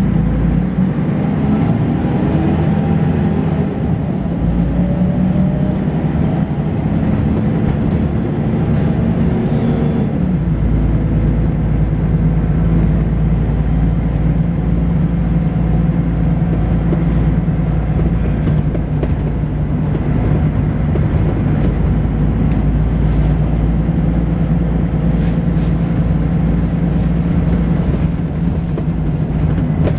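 Volvo B10BLE bus's rear-mounted six-cylinder diesel and ZF automatic gearbox under way, with heavy engine thrash. The pitch rises for about the first ten seconds, then changes abruptly and settles into a steady drone. A faint, steady high-pitched whine runs under the drone from then on.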